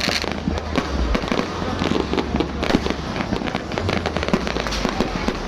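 New Year's Eve fireworks going off without pause: a dense run of bangs and crackles, many a second.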